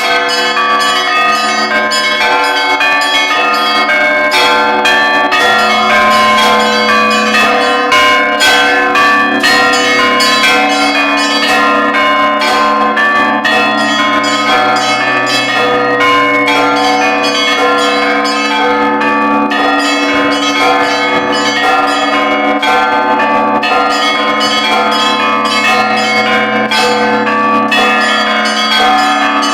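Several church bells rung together in a continuous peal: lighter bells struck in quick succession over the sustained hum of larger, deeper bells.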